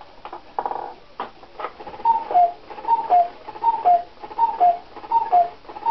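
A 1970s cuckoo clock calling the hour. A few clicks from the mechanism come first, then the cuckoo's falling two-note call repeats about every 0.8 s, five times.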